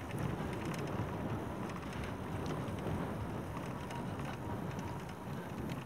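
Fat tyres of a RadRover 5 e-bike rolling over the ground: a steady rustling hiss with a few faint ticks.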